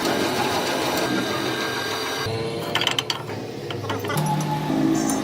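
Machinery running steadily, with a few sharp clicks about three seconds in and a low steady hum toward the end.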